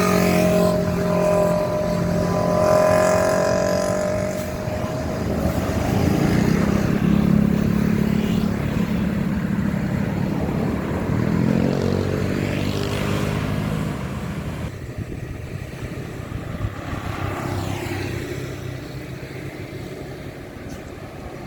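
Heavy vehicle engines, most likely buses, running past on a road, their pitch gliding up and down as they go by. It grows quieter about two-thirds of the way through as the traffic moves off.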